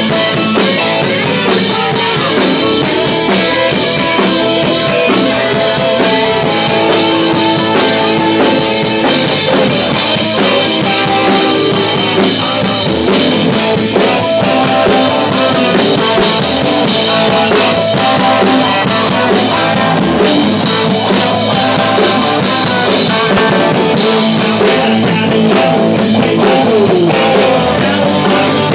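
Live rock band playing loud and steady: electric guitars over a drum kit, with a harmonica played into the vocal microphone.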